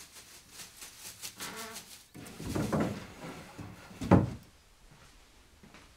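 Dried flower petals rustling and wooden drying-cabinet trays scraping as they are handled, in a few separate bouts, the loudest about four seconds in.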